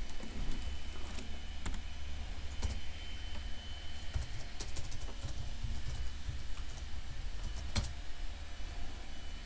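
A few scattered light clicks and taps of hands working at a desk, over a steady low rumble. The loudest click comes near the end.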